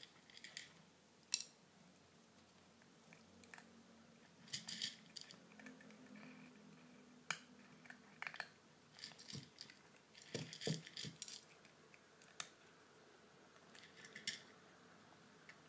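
A kitten crunching dry cat kibble: faint crunches in short clusters, with a few sharp clicks between them.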